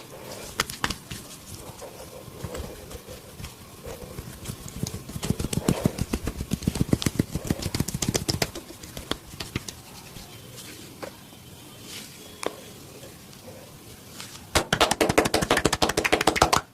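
Hands working a person's head and body in a massage, making quick trains of percussive slaps and cracks: a run in the middle and a louder, faster run near the end that cuts off suddenly.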